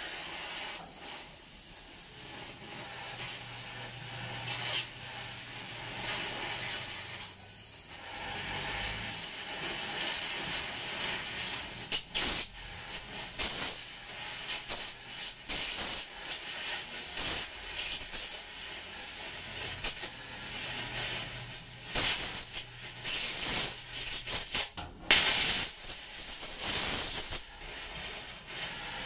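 Oxy-fuel cutting torch hissing steadily as it cuts through a rusted steel floor plate, with a few sharp cracks along the way, the loudest near the end.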